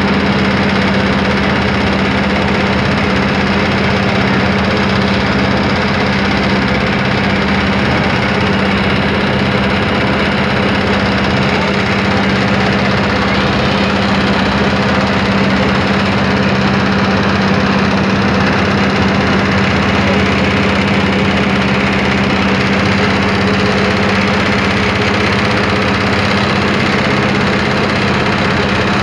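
Boat engine running steadily at an even speed: a loud, unchanging drone with a strong low hum.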